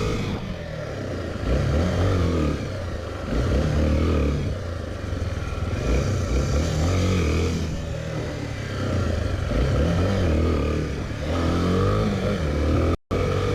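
Honda Tornado 250's single-cylinder four-stroke engine revving in repeated bursts of throttle, its pitch rising and falling every couple of seconds. The sound drops out for an instant near the end.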